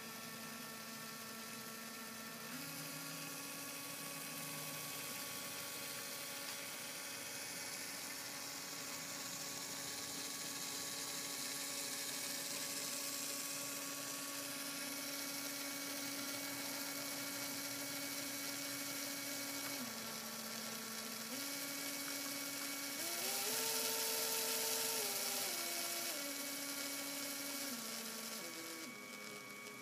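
Small Lego electric motor whining as it turns a Lego Technic model of the VW Beetle flat engine on a dyno, over a steady hiss. The pitch steps up and down in stages as the speed is changed and is highest about three-quarters of the way through.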